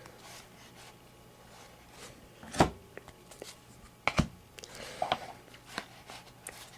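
A few light knocks and soft handling noises from trading card packs and cards being handled, with the two clearest knocks about two and a half and four seconds in.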